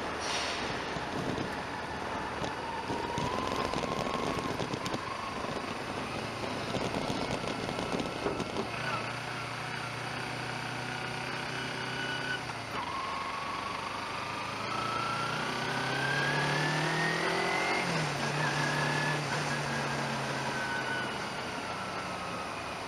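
A vehicle's engine pulling away and accelerating through the gears: its pitch climbs, drops at a gear change about halfway, climbs again and drops at another shift, over steady road and wind noise. A brief clatter right at the start as the wheels cross the ferry's steel ramp.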